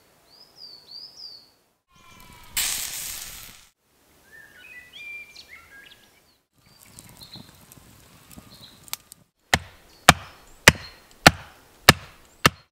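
Woodland birdsong with a brief rush of noise, then a wooden mallet knocking a wooden stake into the ground: six sharp strikes about half a second apart near the end.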